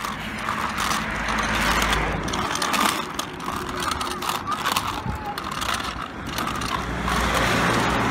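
Small child's bike with training wheels rolling over rough tarmac, rattling and clicking steadily, mixed with rumble and knocks from the moving phone.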